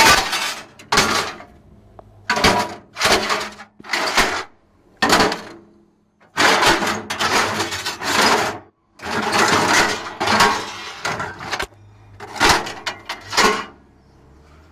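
Junk being tossed into a container, a dozen or so loud crashes and clatters in an uneven rhythm, some short and some drawn out over about a second.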